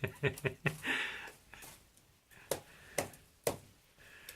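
A series of sharp knocks and clicks on hard objects: several quick ones in the first second, then three stronger knocks about half a second apart.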